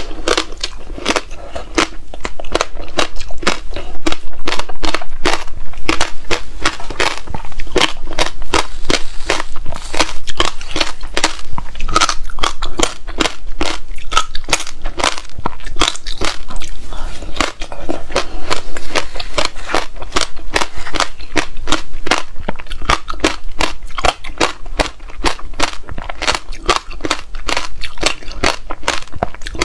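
Close-miked chewing of frozen passion fruit pulp: dense, rapid crackling crunches of frozen pulp and seeds, one crunch hard on the next.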